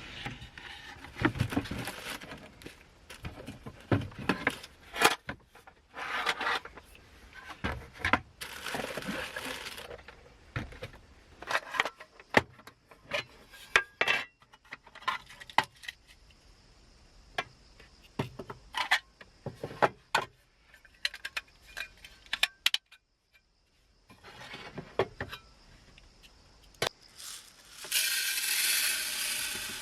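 Small metal objects being handled: a run of sharp clinks, clatters and scrapes, with a short lull about two-thirds of the way through and a longer hissing rustle near the end.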